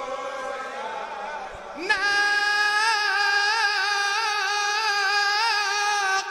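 A solo voice singing an Arabic devotional chant: a quieter phrase fades out, then about two seconds in the singer holds one long note with a wavering vibrato.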